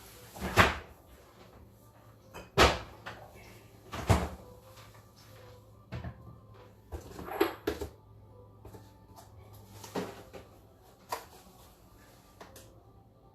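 Kitchen cupboard doors and items being handled: about eight irregular sharp knocks and clatters, the loudest about half a second in, over a faint steady low hum.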